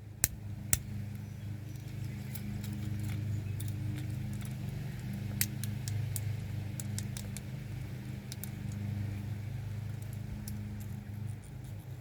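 Scattered sharp clicks from a fidget cube's buttons and switches being worked, over a steady low mechanical hum.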